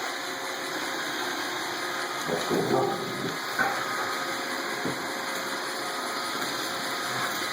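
iRobot Roomba 770 robot vacuum running, a steady whirring hiss of its vacuum motor and brushes. A brief louder sound comes about two and a half seconds in, and a fainter one about a second later.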